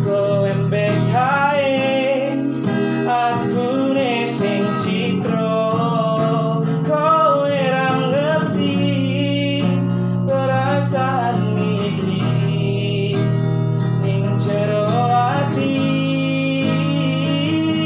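A man singing a slow Javanese love song to acoustic guitar, with a held, wavering vocal line over steady chords.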